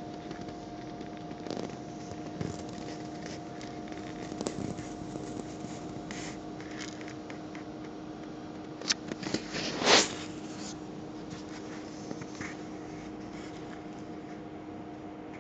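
Scratchy handling noise, short clicks and rubs, over a steady hum, with one louder scrape about ten seconds in.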